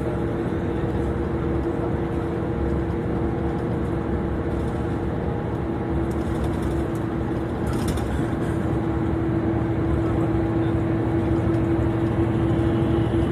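Cabin noise of a vehicle driving at highway speed: a steady rumble of engine and tyres on the road with a held humming tone, growing a little louder near the end.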